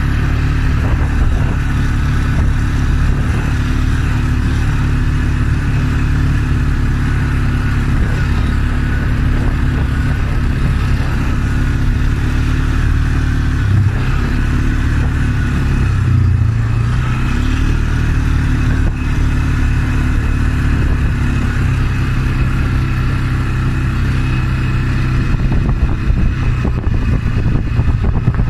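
Polaris ATV engine running steadily while riding along a rough field track, its note shifting briefly about halfway through.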